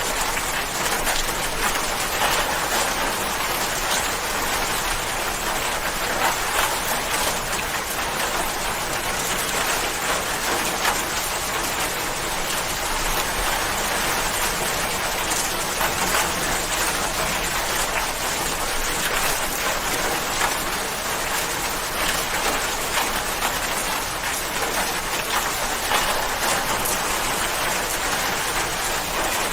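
Steady rain falling on a surface, an even hiss of many small drop patters.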